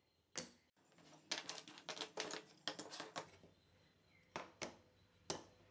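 Wooden parts being handled and set down on a cutting mat. A quick, irregular run of light knocks and clacks is followed by three more single knocks near the end.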